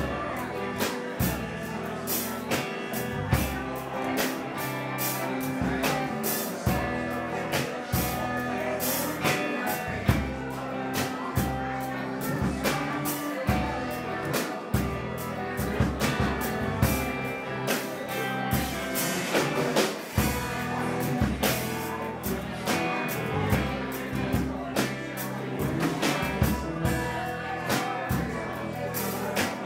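Live blues band playing: electric guitar, bass guitar and a drum kit keeping a steady beat.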